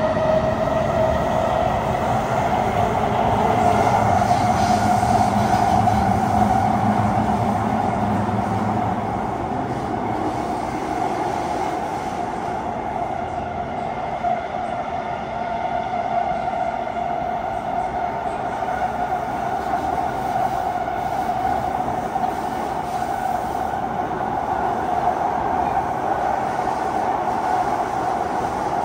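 Kawasaki C151 metro train running through an underground tunnel, heard on board: a continuous rumble of the running train with several steady high tones over it. It is a little louder for the first eight seconds or so, then eases slightly.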